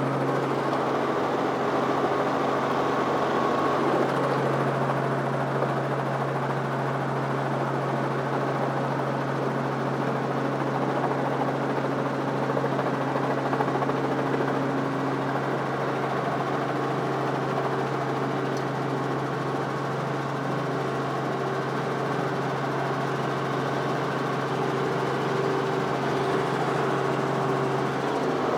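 Robinson R44 Raven helicopter's piston engine and rotor running, a steady drone heard from inside the cabin, as the helicopter lifts off from the ground.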